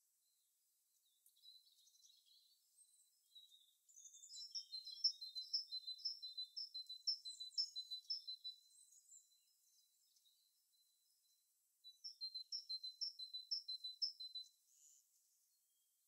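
A small songbird singing in two runs of quick, evenly repeated high notes, about three or four a second: a longer run of about four seconds, then a shorter one of about three seconds near the end.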